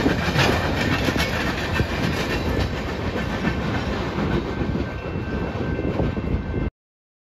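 Empty centerbeam flatcars of a freight train rolling past, with a steady rumble and wheels clicking over the rail joints. The sound cuts off suddenly near the end.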